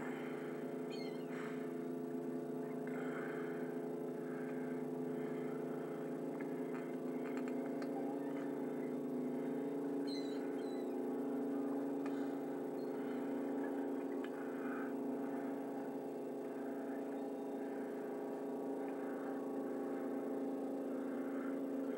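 A motor running steadily, a pitched hum that holds for the whole stretch, with a few faint, short, high calls from gulls over it.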